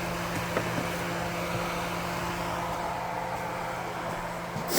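A steady mechanical hum with an even whooshing hiss, like a running fan or appliance motor. A short, loud scraping noise comes right at the end.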